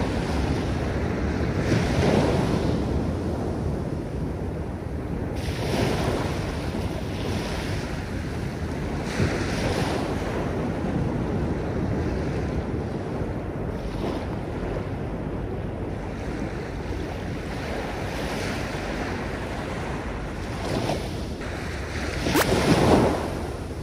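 Sea waves washing up on a coarse coral-sand and shell beach. The wash swells every few seconds, and the loudest surge comes near the end.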